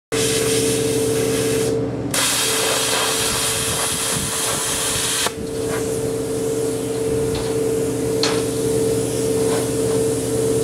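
Plasma cutter cutting steel plate: a loud, steady hiss of air and arc over a humming tone. The hiss breaks off briefly about two seconds in and dips again a little after five seconds.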